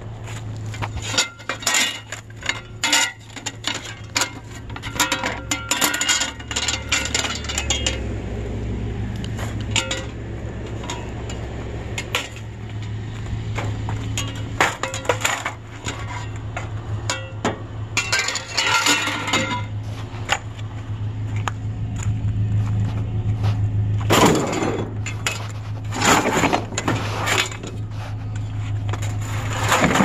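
Sheet-metal junk clanking and rattling as it is handled and loaded into a pickup bed, in clusters of sharp knocks with the loudest bangs near the end. Under it the pickup's engine idles with a steady low hum.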